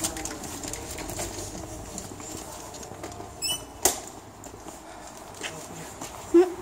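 Phone handling rustle as it is carried through a doorway. About three and a half seconds in a door creaks, followed by a sharp latch click, and a brief low sound comes near the end.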